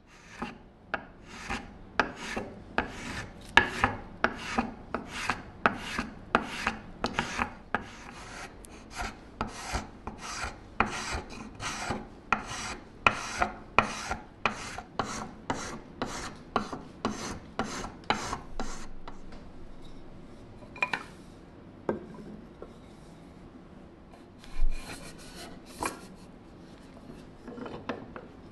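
Spokeshave shaving a turned wooden stool leg: quick, even scraping strokes of the blade along the wood, about two a second. About two-thirds of the way through the strokes stop, leaving only a few scattered knocks and scrapes.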